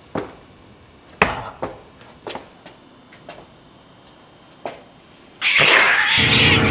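A few scattered knocks and thuds, then about five seconds in a loud, harsh cat-like screech breaks out and carries on, with music coming in under it near the end.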